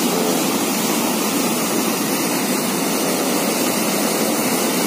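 Steady rushing of white water churning out through an opened river dam gate.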